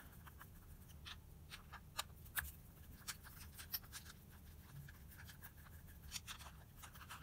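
Faint, irregular small clicks and scratches of a screwdriver backing out the two JIS screws that hold the needle-retaining plate in a Mikuni BS34 carburettor's diaphragm and slide assembly.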